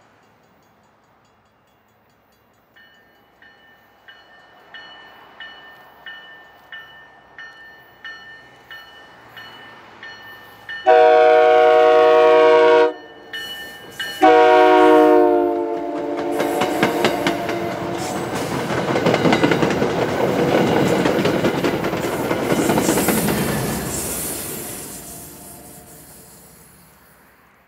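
MBTA commuter train approaching and passing: a bell dings about one and a half times a second, then the leading bi-level cab car sounds two multi-chime horn blasts of about two seconds each, the second dropping slightly in pitch as it goes by. The coaches' wheels then clatter over the rail joints, fading away near the end.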